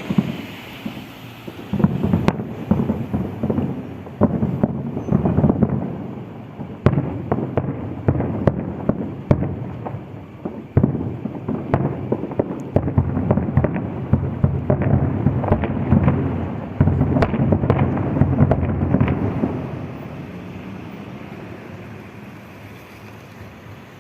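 Fireworks display: a rapid, dense barrage of bangs and crackles, dying down to a fainter rumble over the last few seconds.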